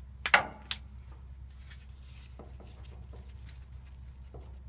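A few sharp clicks of small hard parts being handled, about a third of a second in, then faint scattered ticks and scrapes over a steady low hum.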